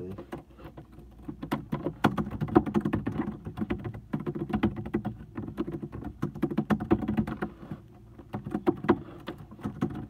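Typing on a laptop keyboard: quick, irregular keystrokes, with a short lull about eight seconds in, over a steady low hum.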